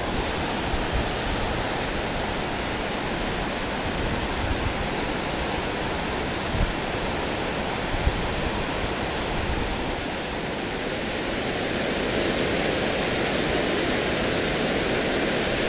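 Steady rush of water pouring over a low stone dam and through the shallow creek below it, with a couple of short low thumps about six and eight seconds in.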